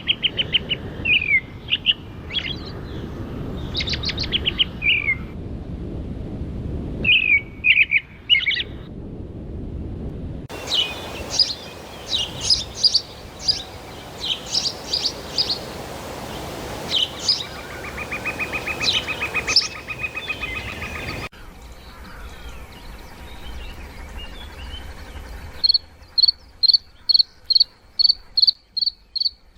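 Wild birds singing and calling in a string of short clips, each with different chirps, trills and whistles and an abrupt cut between them. Near the end a single even chirp repeats steadily about three times a second.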